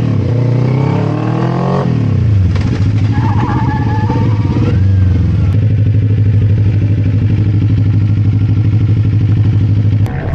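Parallel-twin sport motorcycle engine revving with pitch rising, then dropping suddenly about two seconds in and running at a steady pitch with a pulsing beat.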